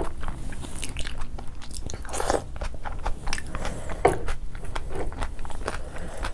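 Close-miked eating sounds: chewing with wet mouth clicks and smacks, and fried rice squelching as it is mixed by hand into a bowl of carrot raita. Two louder wet squelches come about two and four seconds in.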